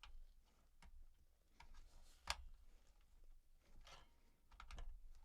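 Faint clicks and knocks of a CPU cooler fan bracket being worked into place on a motherboard, with one sharper click about two seconds in and a cluster of clicks near the end.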